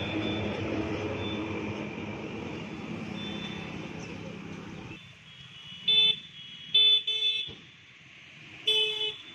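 Steady outdoor street background noise. About five seconds in it drops away and a vehicle horn honks four short times, two of them back to back and the last a little longer.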